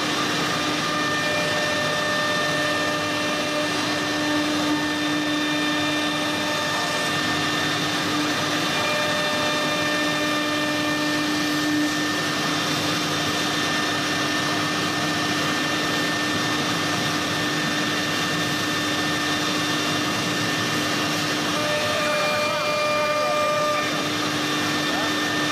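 Horizontal side-drilling spindle of a CNC router running with a steady whine, its bit cutting into the edge of a wooden door panel.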